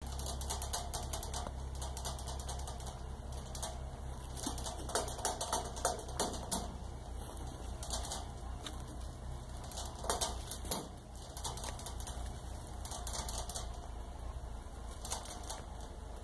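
Irregular bursts of dry crackling and clicking rustle from baby rabbits shifting about in wood-shaving and hay bedding, over a steady low hum.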